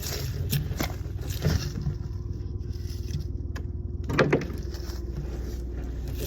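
A small engine running steadily, with a few short knocks and scrapes; the loudest clatter comes about four seconds in.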